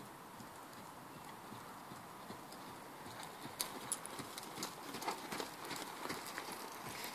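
Hoofbeats of a ridden horse on a sand arena footing, getting louder about three seconds in as it comes close, with scattered sharp clicks.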